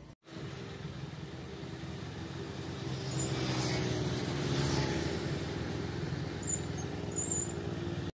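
Honda motorcycle engine running steadily as the bike moves along, with a rushing wind and road noise; it grows louder over the first few seconds.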